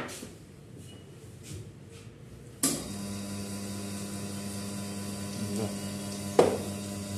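Faint hiss, then about two and a half seconds in an electric machine switches on with a click and runs with a steady hum, joined near the end by a sharp knock.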